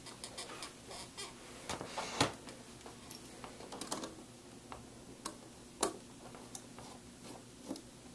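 Small clicks and taps of fingers and tools working at the metal side bracket and screws of a laptop LCD panel, with two sharper clicks about two and six seconds in.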